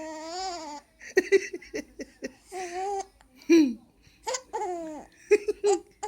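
A baby laughing: a drawn-out squealing laugh, then a string of short giggling bursts, in response to a repeated game of "boo".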